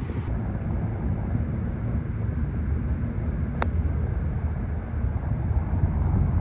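Golf driver striking a ball off the tee: one sharp click about three and a half seconds in, over a steady low rumble.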